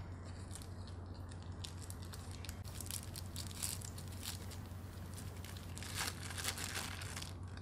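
Thin plastic bag of sambal crinkling as fingers work its tied top open: quick, irregular crackles, densest a few seconds in and again near the end, over a steady low hum.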